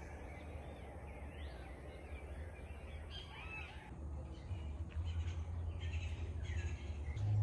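Birds chirping and calling faintly outdoors over a low steady rumble.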